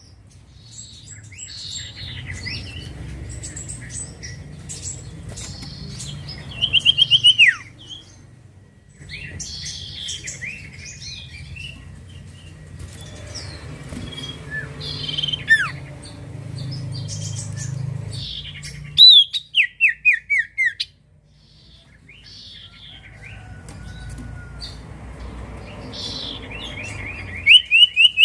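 Common iora (cipoh) calling: loud bursts of quick, falling whistled notes, six or seven in a row, three times, with scattered chirps between, over a low steady hum.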